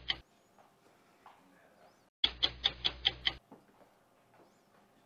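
Clock-ticking sound effect in quick bursts of about six ticks, roughly five ticks a second, marking time passing. One burst ends just after the start, and another begins about two seconds in and lasts a little over a second.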